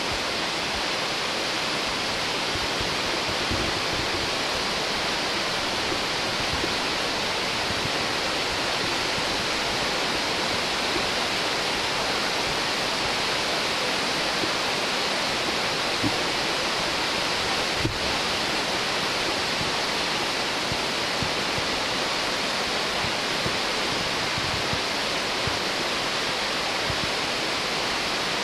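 Nachi Falls, a 133 m waterfall, giving a steady, even rush of falling water with no let-up.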